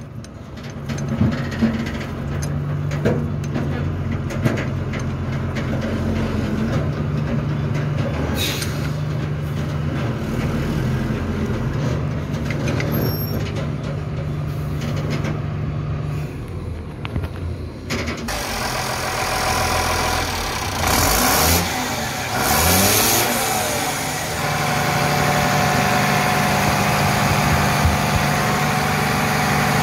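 Tata 2518 truck's Cummins diesel engine running, revving up and down briefly about twenty seconds in, then settling into a steady idle.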